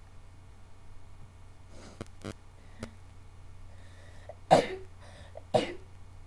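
A person sneezing twice, about a second apart, each sneeze sudden and short after a faint breath in; the first is the louder.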